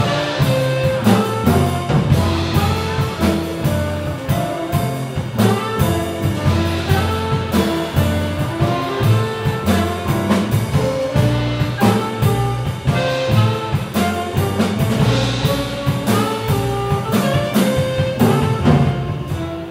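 Live jazz quartet playing: tenor saxophone, piano, double bass and drum kit.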